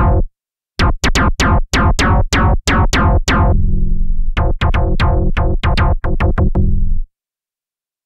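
Korg Opsix Native FM synthesizer playing a bass preset: a quick run of short plucked bass notes, about three or four a second, with one longer held note near the middle. The notes stop about a second before the end.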